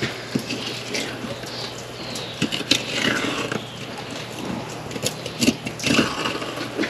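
Fillet knife cutting a large Pacific halibut's fillet off the backbone, the blade scraping and clicking over the rib bones in short, irregular strokes.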